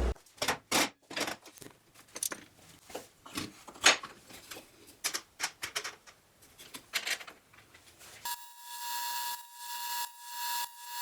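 Workshop handling sounds: a string of sharp clicks and knocks at irregular intervals, the loudest about four seconds in. A little after eight seconds in, a power tool starts with a steady whine that swells and eases in repeated strokes about every half second.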